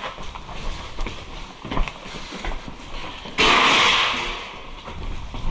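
Footsteps and gear clattering while moving quickly. About three and a half seconds in, a sudden loud rushing hiss starts abruptly and fades away over about a second.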